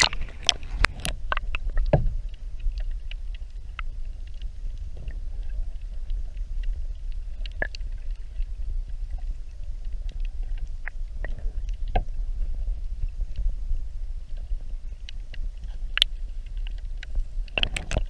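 Wind buffeting the microphone with a steady low rumble, with scattered knocks and clicks, several close together in the first two seconds.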